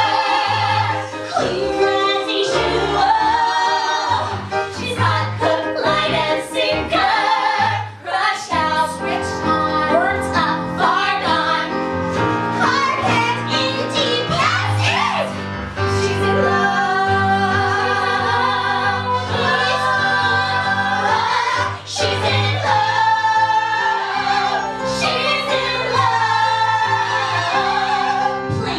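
A group of women singing a musical-theatre song together in harmony into microphones, with a steady low backing line beneath the voices.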